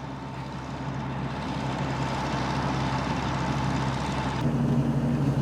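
Fortschritt E514 combine harvester running, its four-cylinder diesel humming steadily under a broad machinery hiss that grows louder as it comes closer. About four and a half seconds in the hiss drops away and a steadier engine tone takes over.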